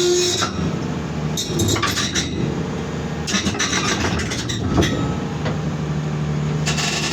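Excavator engine running while the machine creeps along on its steel tracks, with repeated metallic clanks and rattles from the track links.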